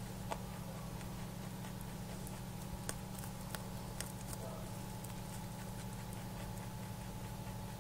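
Rabbit chewing a crunchy treat: scattered crisp crunching clicks over a steady low hum.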